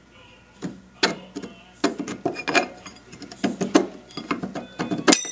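Metal parts of a milling machine's top-end bearing housing and sheave clinking and knocking as they are turned and shifted by hand, in irregular taps and scrapes. Near the end comes one sharp metallic clang that rings briefly.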